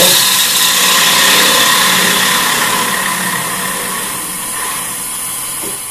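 Bowl gouge cutting into a wooden bowl spinning on a wood lathe: a steady, rushing cutting noise as the shavings peel off, over the steady hum of the running lathe. The cutting noise gradually gets quieter toward the end.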